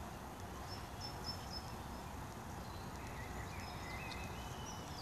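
Outdoor ambience: birds chirping in short high notes, busier in the second half, over a steady low background rumble.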